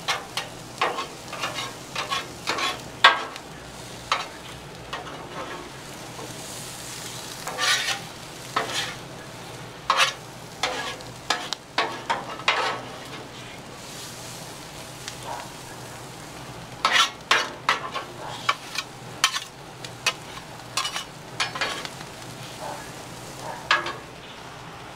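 Corn kernels and garlic sizzling steadily on a Blackstone steel flat-top griddle, with a metal spatula scraping and clacking against the griddle in bursts as the corn is mixed and pushed around. In the pauses between bursts only the sizzling is left.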